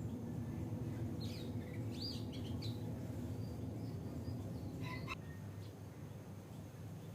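Oriental magpie-robin calling: a quick run of short chirps and whistled notes about a second in, and one sharp note around five seconds, over a steady low background rumble.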